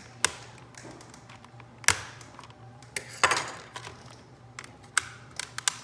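Flathead screwdriver clicking and tapping against the plastic case of a Casio FX-CG500 calculator while prying off the bezel around the screen: a handful of sharp separate clicks, with a short scrape about three seconds in.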